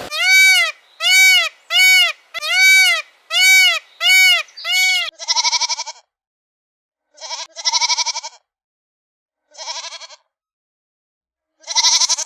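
A run of seven short calls, each rising then falling in pitch, about two a second. Then four separate quavering bleats of a farm animal, with pauses between them.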